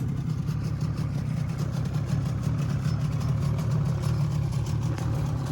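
Steady low engine hum of a tourist submarine's machinery, heard from inside the cabin.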